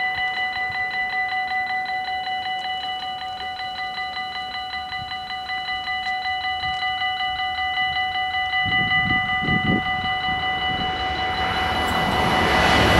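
Level-crossing warning bells ringing in a fast, even rhythm, about four strokes a second. In the last second or two the noise of an approaching NS ICMm electric intercity train rises under the bells.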